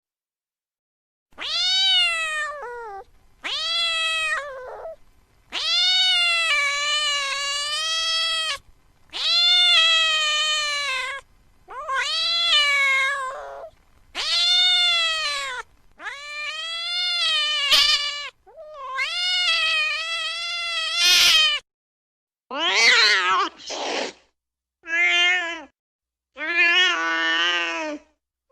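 Domestic cat meowing over and over: long, drawn-out yowling meows, each one to three seconds, rising and then falling in pitch, with short silent gaps between. Near the end the meows are shorter and lower-pitched.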